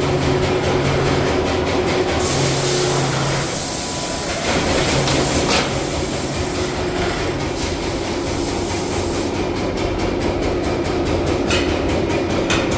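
Metal lathe running with a tool trimming a spinning aluminium workpiece, a steady machine hum under a louder hiss that comes in about two seconds in and again around seven seconds in.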